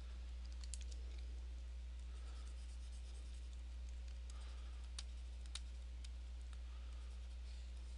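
Stylus scratching and tapping on a drawing tablet in short strokes, with scattered light clicks, over a steady low electrical hum.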